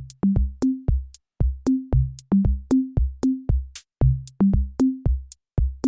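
Short electronic drum beat: quick, evenly paced hits of a low kick and higher-pitched toms, about four a second.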